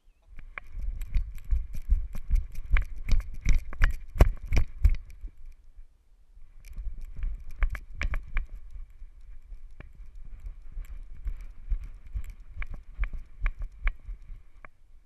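Rhythmic thumps and knocks from a Labrador retriever's galloping strides, picked up through its body-mounted GoPro as it runs, with the mount jostling at each stride. The thumps are loudest in the first five seconds, drop off briefly, then carry on lighter until they stop near the end.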